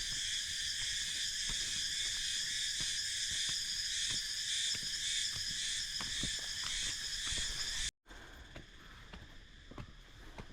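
Insect chorus: a high-pitched buzzing that pulses about two to three times a second, with scattered light ticks. It cuts off abruptly about eight seconds in, and a fainter buzz follows.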